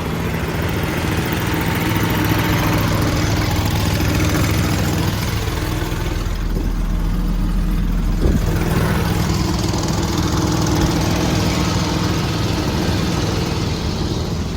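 Champion air compressor on a service truck running steadily while it pumps up its air tank. There is one short click about eight seconds in.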